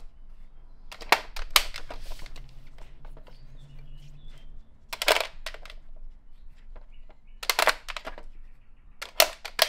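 Plastic dog treat puzzle toy clattering on a tile floor as a dog noses and paws at its sliding and flip-up covers to get at hidden treats: four short flurries of clicks and knocks.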